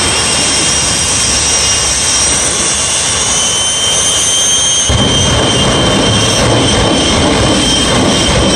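The jet engines of the Shockwave triple-jet truck running hard while it sits in place: a loud, steady jet roar with a high whistling whine over it. About five seconds in, a deeper rumble suddenly joins it.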